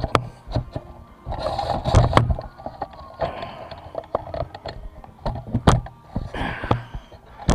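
Handling noise from a camera tripod being lowered and adjusted: scattered clicks and knocks with a few short scraping rustles.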